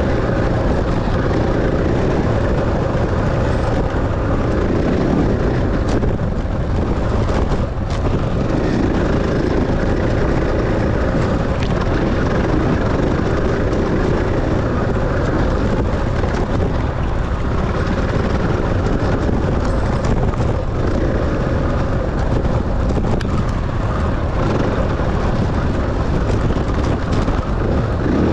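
Enduro dirt bike engine running continuously during a race lap, a loud steady drone that never lets up.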